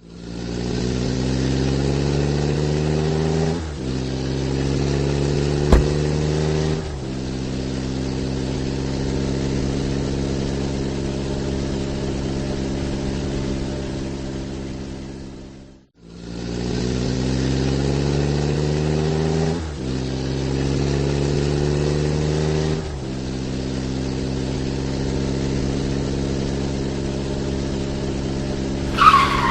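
Car engine sound effect accelerating hard through the gears: the revs climb, drop at an upshift, climb again, drop at a second upshift, then hold steady and fade out about halfway through. The same acceleration run then plays a second time, with one sharp click during the first run and a tyre squeal starting right at the end.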